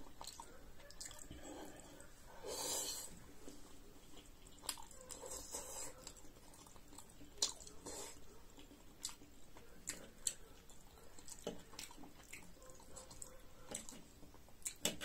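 A person chewing and eating food, with scattered light clicks of a metal fork against the iron wok.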